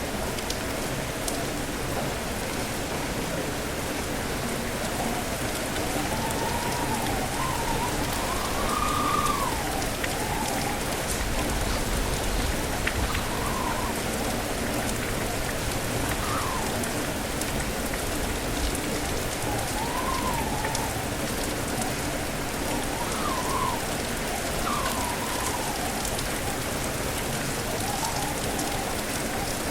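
Steady rain falling, with strong wind whistling in rising and falling tones that come and go through much of it.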